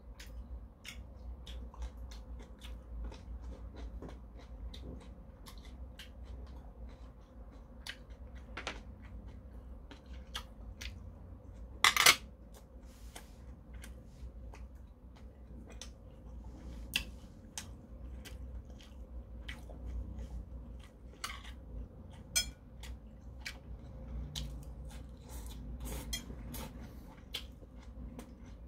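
Metal chopsticks clicking against a porcelain bowl and against each other while picking up food, with chewing in between; the clicks are irregular, and one clack about halfway through is much louder than the rest.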